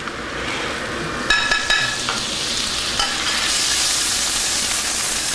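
Garlic sizzling in olive oil and butter in a pan as it is stirred, with a few short clinks just over a second in; the sizzle grows louder in the second half.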